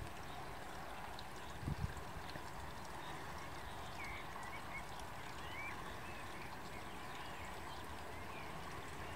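Quiet outdoor ambience: a steady hiss of background noise with a few faint, short bird chirps in the distance about four to six seconds in, and a single low thump near the two-second mark.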